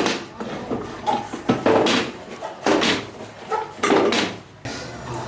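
A series of sharp knocks and clatters, roughly one a second and irregular, like hard objects being struck or set down.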